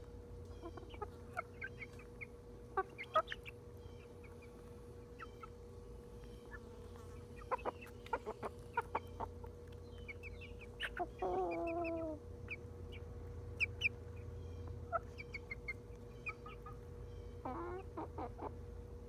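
Silkie chickens clucking with many short, scattered calls, and a louder drawn-out squawk that falls in pitch about eleven seconds in, with another shorter one near the end.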